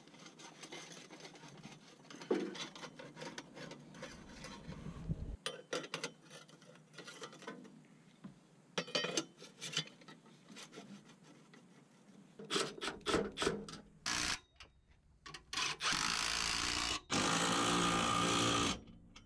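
Stainless exhaust pipes scraping and clicking faintly as they are slid together and fitted, then a few sharp metal knocks. Near the end a red Milwaukee cordless power tool runs in two steady spells, driving the nut of an exhaust band clamp; this motor whine is the loudest sound.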